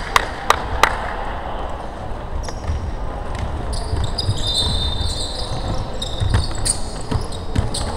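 Basketball game on a hardwood court: the ball bouncing sharply a few times in the first second, then high squeaks of basketball shoes on the floor around the middle, over a steady low rumble of players running.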